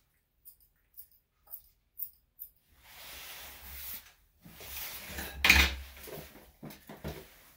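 Small metal grooming tool closing with a sharp click about twice a second, five times, then rustling handling noise with one loud clatter about halfway through and a few quick clicks near the end.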